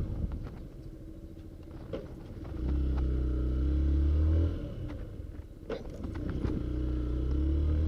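Wind blasting on an SJCAM action camera's stock external microphone while riding a Yamaha SZ motorcycle: a heavy low rumble of buffeting that swells about three seconds in and again near the end, over the motorcycle engine running steadily. The buffeting is the wind noise the stock mic fails to keep out.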